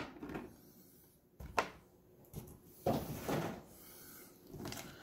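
Clear plastic blister tray being handled and set down on a wooden table: a sharp click about a second and a half in, then a few soft knocks and rubs of plastic.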